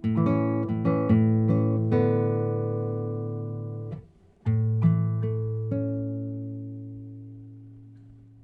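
Acoustic guitar playing the closing phrase of a folk song: plucked notes and chords, a brief stop about four seconds in, then a final phrase ending on a chord left ringing until it fades out.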